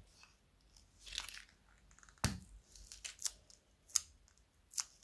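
Thin plastic zip-lock bag of purple slime handled and squeezed as the slime is pushed out into a glass bowl: a soft crinkle about a second in, a sharp click just past two seconds, then several short sharp snaps.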